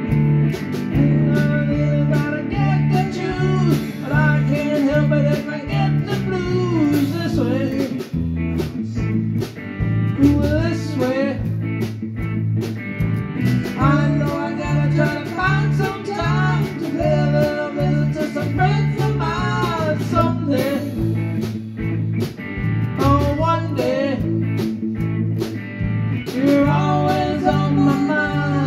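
A live band playing: an electric bass holds a steady rhythmic line while a guitar lead plays bending notes over it.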